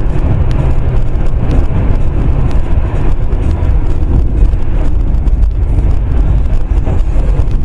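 Car interior road and engine noise at highway speed, a loud, steady low rumble picked up by a dashcam microphone.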